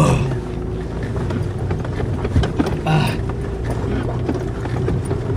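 Mitsubishi Pajero's engine running steadily under load, heard from inside the cabin, with frequent irregular knocks and rattles from the body and suspension as it drives over rough ground.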